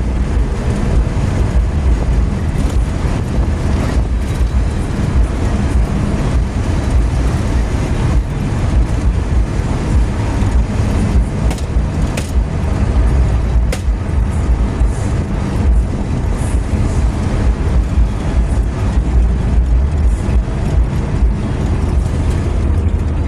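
Steady engine and tyre rumble of a moving road vehicle, heard from inside the cabin while it cruises along a highway.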